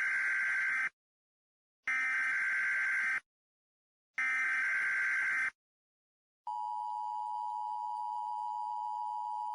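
Emergency Alert System alert opening: three buzzing SAME data-header bursts, each about a second long with a second's gap between them, followed about six and a half seconds in by the steady two-tone EAS attention signal.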